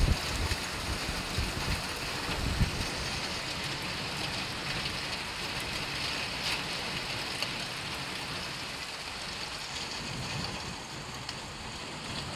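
Heavy rain pouring onto a flooded street, a steady, even hiss, with a few low bumps in the first few seconds.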